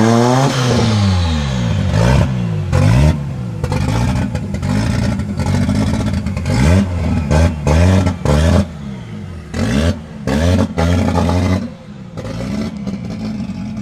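Tuned 700 hp Audi Ur Quattro's turbocharged five-cylinder engine revving. A rev falls away at the start, then comes a string of quick throttle blips, each rising and falling in pitch with short gaps between them, before it settles back near idle close to the end.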